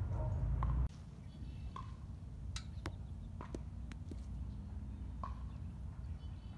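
Low wind rumble on the microphone, heaviest in the first second, then faint ambience with a few scattered light ticks and taps.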